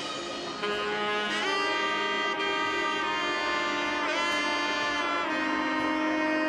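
Background music: held, swelling brass or saxophone-like notes with a few bends in pitch, without drums.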